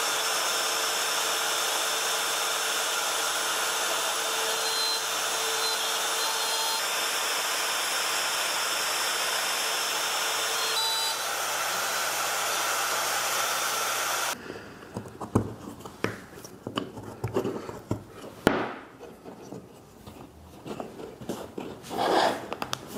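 Compact router with a 5 mm bit running at steady speed in a mortising jig, cutting a domino mortise in hardwood; it cuts off sharply about two-thirds of the way through. Light knocks and rubbing of wooden boards being handled follow.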